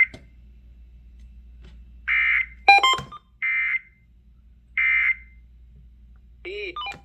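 Emergency Alert System digital data bursts: three identical short, buzzy squawks about a second apart, the end-of-message code that closes an alert. A brief loud ringing tone falls between the first two bursts, and a short warbling beep comes near the end.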